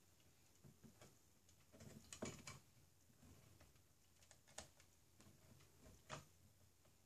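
Near silence with a few faint plastic clicks and knocks, a small cluster about two seconds in and single ones later: the Sparkmaker resin printer's vat and parts being fitted back together by hand.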